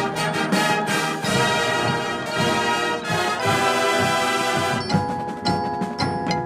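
Marching band playing: brass chords over drums and mallet percussion, with the drum strikes standing out more clearly in the last couple of seconds.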